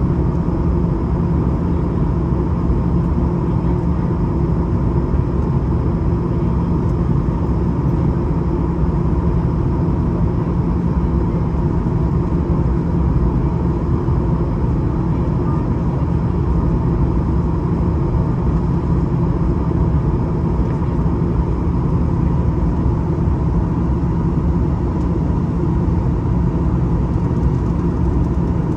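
Steady in-cabin drone of a Boeing 737-900ER airliner in flight during descent: engine and rushing airflow noise with a low rumble and a few constant hums.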